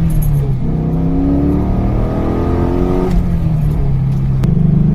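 2001 Pontiac Firebird Formula's LS1 V8 accelerating hard through the T56 manual's gears. Its pitch climbs for about three seconds, drops at an upshift, then starts rising again.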